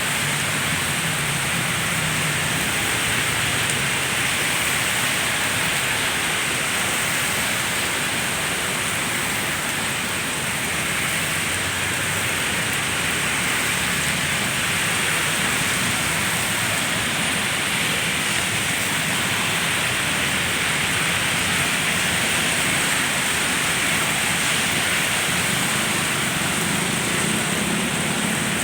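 Heavy rain pouring steadily, a dense, even hiss of water.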